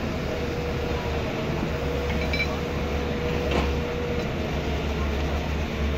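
Passenger train running away along the track: a steady low rumble, with a faint steady tone that holds for about four seconds and then stops.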